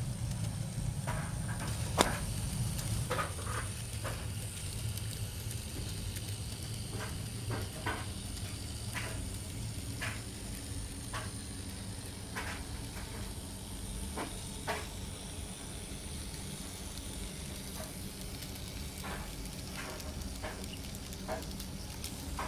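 Model locomotive running on track: a low steady motor hum with light, irregular clicks from the wheels on the rails. The hum eases off about halfway through, and one sharper click comes about two seconds in.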